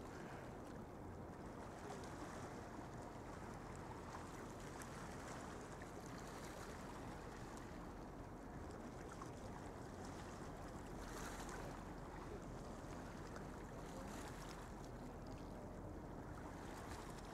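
Faint, steady outdoor background noise: a low rumble with a soft hiss over it and no distinct events.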